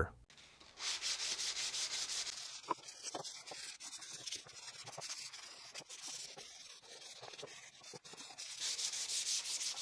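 Hand sanding of pine with 220-grit sandpaper, smoothing dried wood putty: a steady rasp of quick back-and-forth strokes. It is louder after about a second and again near the end, softer in between, with a few light taps.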